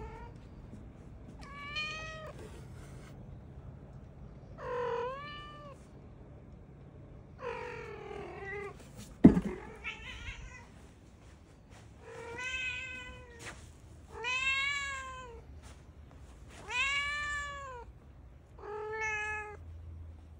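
A cat meowing over and over, about eight meows roughly two seconds apart, each rising and then falling in pitch. A single sharp knock about nine seconds in is the loudest sound.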